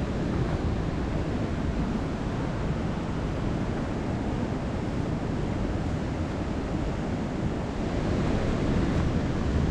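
The Leutascher Ache river rushing through the narrow gorge: a steady, even roar of water, a little louder near the end.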